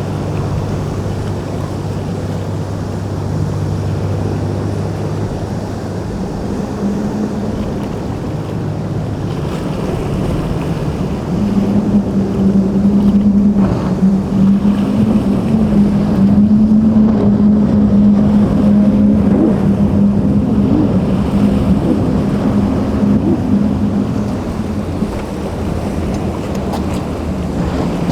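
Motorboat engines running with a steady hum through choppy inlet water, with waves washing and wind buffeting the microphone. The engine hum grows louder from about a third of the way in and eases off near the end as a boat passes closer.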